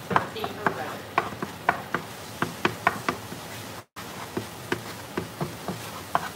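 Wooden spatula tapping and scraping against a frying pan while curry paste is stirred, in irregular taps about two to three a second. The sound cuts out completely for a moment about four seconds in.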